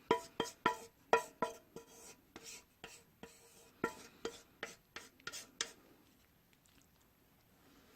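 Close-miked eating of spicy stir-fried instant noodles: a run of sharp mouth clicks with a slight ring, about three a second, that stops about six seconds in.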